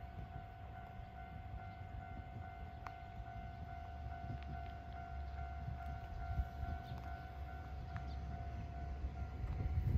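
A steady, distant high-pitched tone, like a siren or alarm, holds unchanged over a low rumble that grows louder near the end, with a few faint clicks.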